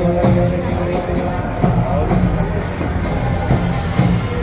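Music with jingling bells shaken on a steady beat, over held notes that end about a second in.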